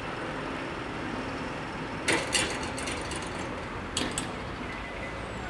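Barrier booms of an FS 64 level crossing finishing their descent, with a quick clatter of knocks about two seconds in and another about four seconds in as the booms come down to rest, over a steady background hum.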